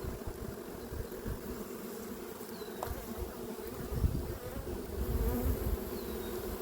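Honeybee colony buzzing steadily at an open hive, with irregular low rumbles and thumps underneath.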